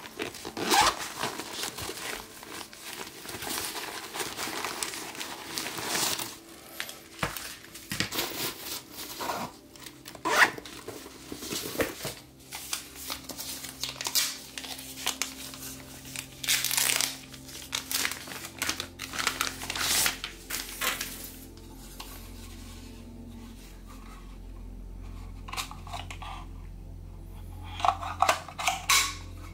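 Soft plastic packaging pouches crinkling and rustling as they are handled and torn open, in irregular bursts. The rustling thins out after about two-thirds of the way through, with a short flurry of louder handling noises near the end.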